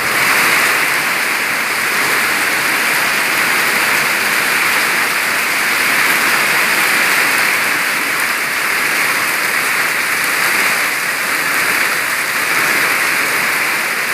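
Heavy rain pouring down on a road and roofs: a loud, steady hiss.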